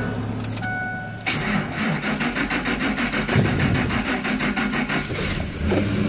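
2003 Ford Expedition's 4.6-litre V8 cranking on the starter and firing briefly on starting fluid, then dying as the fluid burns off. No fuel is reaching the injectors, which the owner puts down to a fuel pump, relay or blown fuse. A dashboard warning chime sounds just before the cranking starts.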